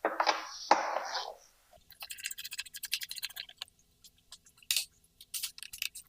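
Scraping against the dirt bike's plastic side panel, then a run of quick, irregular clicks as the side-panel bolt is worked loose.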